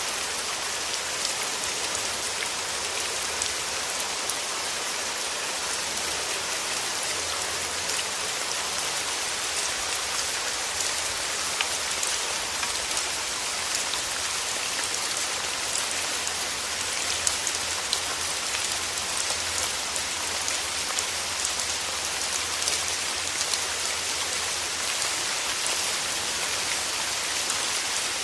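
Steady rain falling, with many fine drop ticks on a surface.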